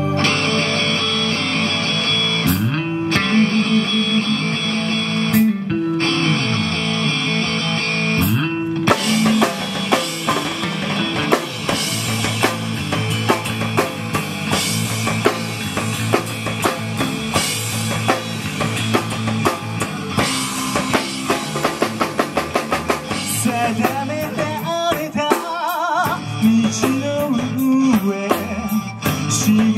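Live rock band playing: sustained electric guitar chords ring with short breaks, then the drum kit comes in about nine seconds in and the band plays on together. A singer's voice joins near the end.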